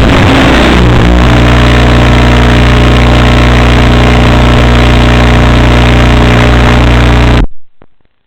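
Electric motor and propeller of an FPV flying wing running steadily, a loud even drone with wind rushing over the microphone, which cuts off abruptly near the end.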